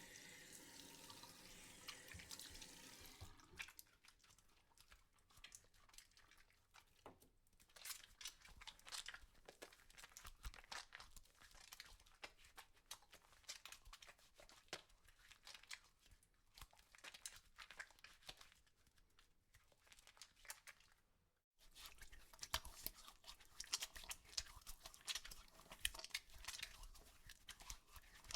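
Faint foley effects of dense crackling and crinkling, like material being crumpled or crunched, in three takes that change about three and a half seconds in and again after a short break about twenty-one seconds in.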